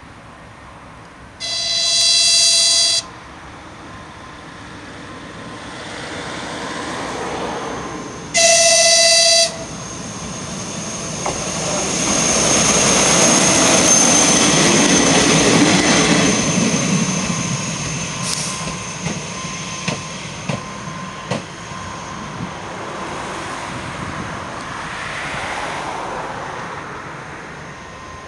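ČD class 814 Regionova diesel railcar sounding its horn twice as it approaches, a longer blast and then a shorter one, then passing close by, its running noise swelling and fading. A few clicks of wheels over rail joints as it moves away.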